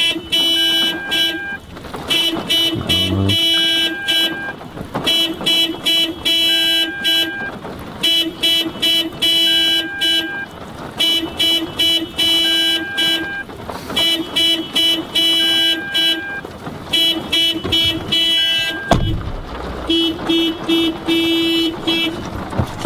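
1999 Toyota Corolla's car alarm going off, sounding the horn in rapid, repeated blasts. A single thump about nineteen seconds in.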